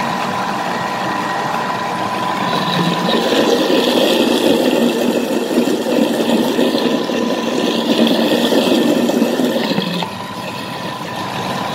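Thermomix food processor running at speed 5, its blade mixing a runny cake batter in the bowl. A steady motor whine runs over a churning, sloshing noise, and the level drops a little about ten seconds in.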